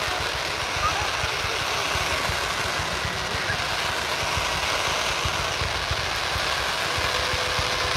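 Ground fountain fireworks spraying sparks, a steady hissing rush with dense irregular crackling.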